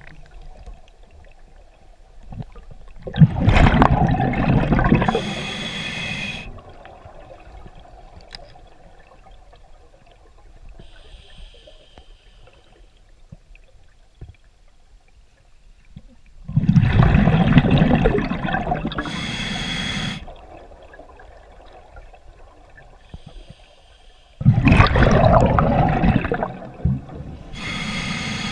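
Scuba diver breathing underwater through a regulator: three loud rushes of exhaled bubbles, several seconds apart, each lasting about two seconds and trailing off in a hiss, with a faint steady hum in between.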